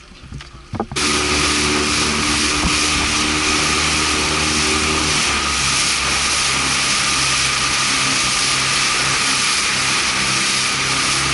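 Small boat's outboard motor throttling up suddenly about a second in, then running steadily under way, with a loud steady rush of wind and water over it.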